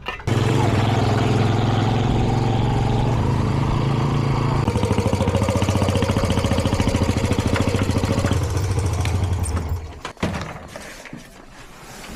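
A small engine running close by with a steady hum. About halfway through it drops slightly in pitch and starts to pulse, then it stops about two seconds before the end.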